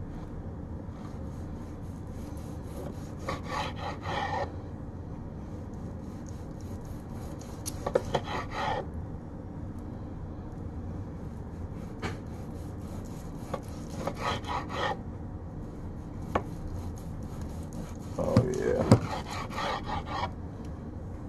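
A knife sawing through a smoked London broil (top round) on a cutting board, in about four short rounds of back-and-forth slicing strokes with pauses between. A couple of single sharp clicks, of the blade or fork against the board, fall in the pauses.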